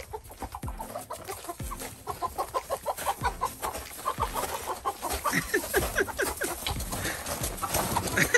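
Several chickens clucking in quick, short, repeated calls as they are caught and held. The calls get louder about halfway through.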